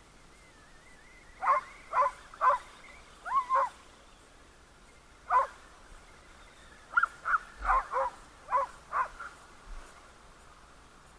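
Short, sharp animal calls, about a dozen, coming in quick groups of two or three.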